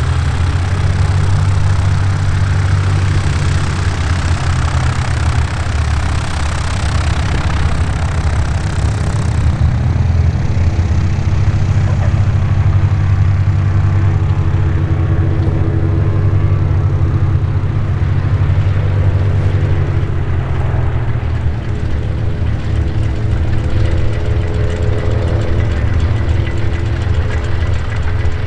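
Boeing Stearman PT-13D's Lycoming R-680 nine-cylinder radial engine and propeller running steadily at low power as the biplane lands and rolls out along the runway. The sound loses its brighter edge about nine seconds in, and a steady low hum with a few held tones carries on through the rollout.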